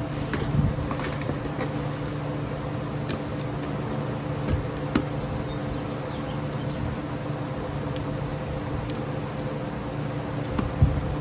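A steady machine hum, like a shop fan's, with scattered light clicks and taps of a screwdriver and small metal carburetor parts being handled during disassembly.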